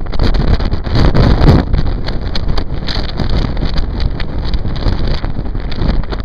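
Gale-force wind buffeting the microphone in gusts, the strongest about a second in.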